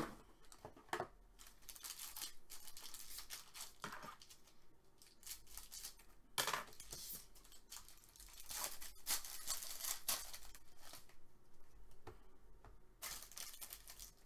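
Foil wrapper of an Upper Deck SP Game Used hockey card pack torn open and crinkled by hand. The tearing and rustling come in several short bursts, with the longest a little past the middle.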